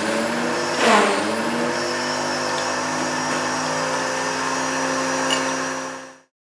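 Countertop blender motor running steadily as it blends a mocha frappe, with a brief louder surge and a small rise in pitch about a second in. The sound cuts off about six seconds in.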